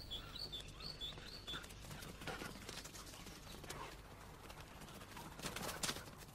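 A bird repeats a short arched chirp about twice a second, stopping after about a second and a half. Then come faint rustling and light thuds of sloughis' paws running through grass, loudest near the end.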